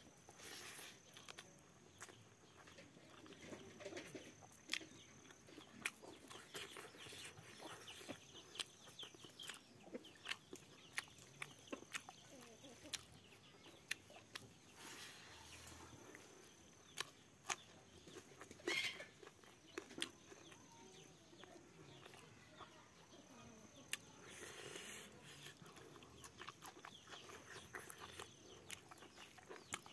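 Quiet, close eating sounds of a person eating rice with his fingers from a metal bowl: scattered small clicks of chewing and lip smacks, with a chicken clucking faintly now and then.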